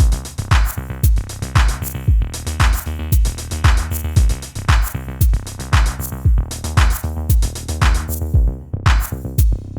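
Background music with a steady electronic drum-machine beat and heavy bass.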